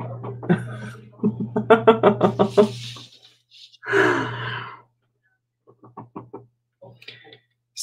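A woman's wordless vocalizing in short bursts: a quick run of pulsed voiced notes, a brief voiced sound, then a few fainter quick notes.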